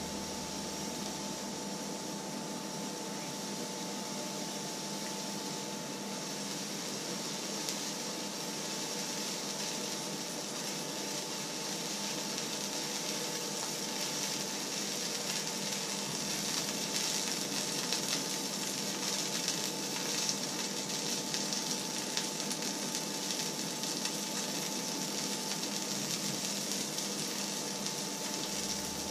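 Oil sizzling in an empty steel frying pan as it heats on the hob: a crackly hiss that grows louder from about halfway through, over a faint steady hum.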